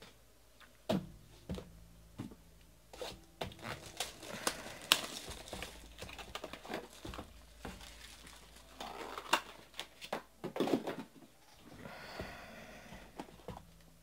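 Sealed cardboard boxes of trading cards being handled and set down on a table: scattered light knocks and clicks, with rustling and crinkling of paper and plastic wrap.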